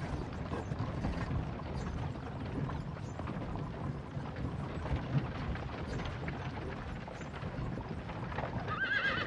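Horse-drawn carriage rolling along: a steady low rumble from the wheels with a dense run of small creaks and clicks. A horse whinnies near the end.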